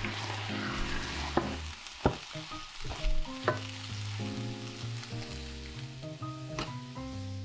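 Diced peppers, carrots and onion sizzling in a frying pan while a wooden spatula stirs them, with a few sharp taps of the spatula against the pan. Soft background music plays under it.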